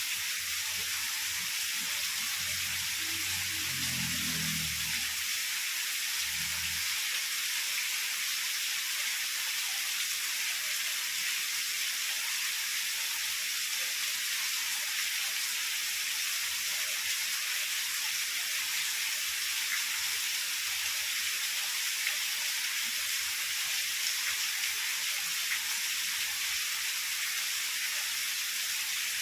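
Heavy rain falling steadily as an even hiss. A low rumble of distant thunder runs through the first six or seven seconds, then fades out.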